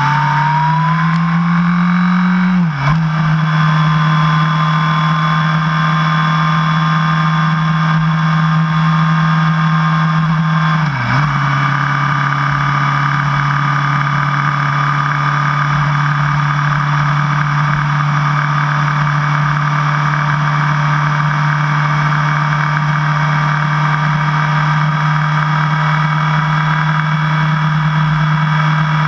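2002 Yamaha YZF R1's inline-four engine under way, its pitch climbing, then dropping briefly and settling lower about three seconds in as it shifts up. It dips again briefly around eleven seconds in, then runs at a steady cruising pitch.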